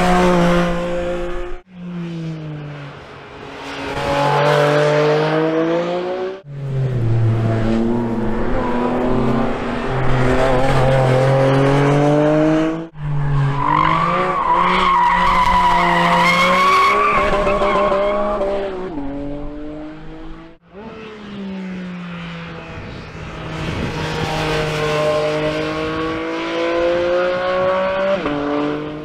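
2022 Porsche 718 Cayman GT4 RS's naturally aspirated 4.0-litre flat-six passing trackside at speed, revs rising and falling repeatedly as the car accelerates and slows through corners, across several abrupt cuts between passes.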